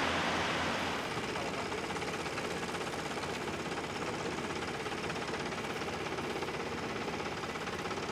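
Exploration drilling rig's engine running steadily, a continuous mechanical drone; a rushing hiss over it, likely the water used in drilling, fades out about a second in.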